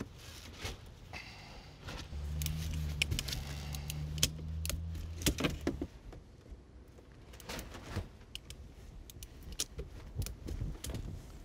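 Metal clicks and clinks of a compression-sleeve tool and fitting being worked onto PEX tubing, with a steady low hum from about two to six seconds in.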